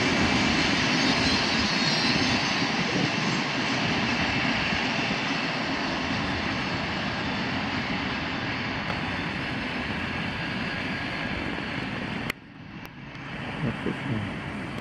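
Freight train of loaded cement hopper wagons rolling past on the rails, a steady noise that slowly fades. The sound drops off abruptly about twelve seconds in, and quieter train noise follows.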